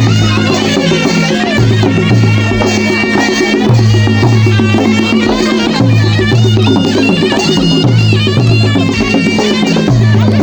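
Loud folk-style music: a low bass figure repeats about every two seconds under a high, wavering melody line.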